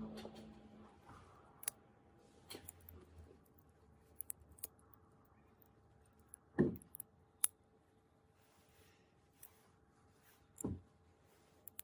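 Light clicks and taps of a phone and small tools being handled on a work surface, with two duller knocks about six and a half and ten and a half seconds in.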